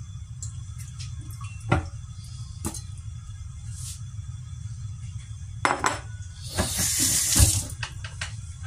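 Kitchen sink tap running for about a second near the end, with a sharp knock in it, as hands are rinsed; a couple of light knocks against a ceramic bowl come earlier, over a steady low hum.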